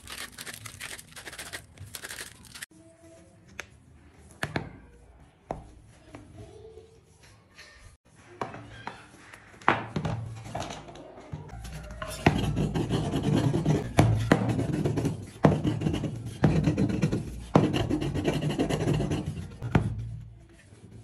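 Sandpaper rubbing on wood at the start, then scattered clicks and knocks from a steel ball bearing and a plywood board being handled. In the second half comes a run of louder rubbing strokes, about one a second.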